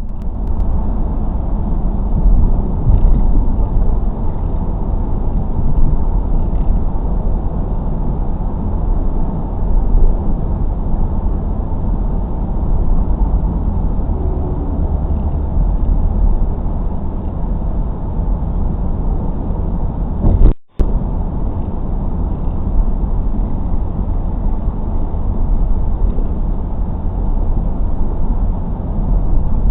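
Car driving, heard from a dash cam inside the cabin: a steady low rumble of tyres and engine, with the sound cutting out for an instant about two-thirds of the way in.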